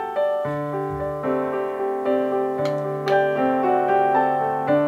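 Background piano music: held notes changing in a slow melody over a low sustained bass note.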